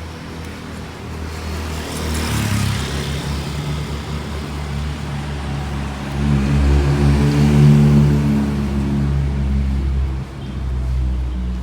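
Road traffic: a vehicle rushes past about two seconds in. Then a motor vehicle's engine runs close by, loudest in the second half, and drops away near the end.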